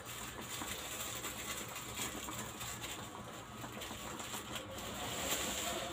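Small plastic sachet rustling and crinkling as it is torn open by hand, with a few faint clicks over a steady low hum.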